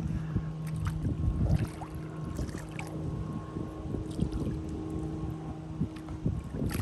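A boat motor idling with a steady low hum, under small irregular splashes and sloshing of water.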